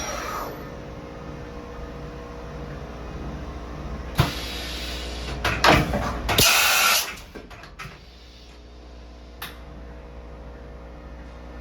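Hardinge Bridgeport 1000 XP3 CNC vertical machining center running: the spindle's whine falls away as it spins down in the first half-second, then the machine hums steadily. About four seconds in comes a sharp click, then a loud rush of noise with clunks for about a second and a half, and the hum settles quieter.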